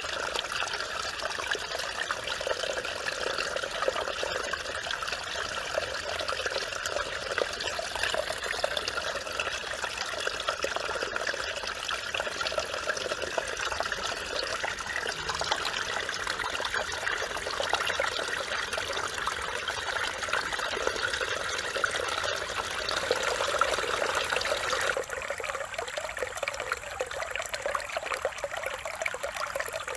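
Mountain valley stream flowing and trickling, a steady babble of running water. About 25 seconds in the sound shifts abruptly to a slightly thinner, lighter trickle.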